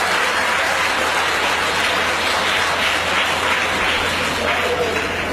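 Audience applauding steadily, cut off abruptly at the end.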